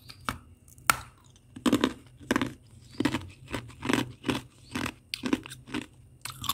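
Freezer frost and ice being chewed: a steady run of crunches, about two a second, with a sharp crack about a second in.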